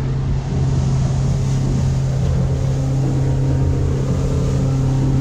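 Motorboat engine running steadily under way, a loud even hum with water and wind hiss over it.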